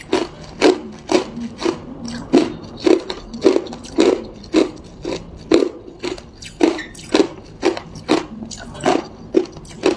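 Hard ice cubes being crunched between the teeth while chewing, in an even rhythm of about two crunches a second.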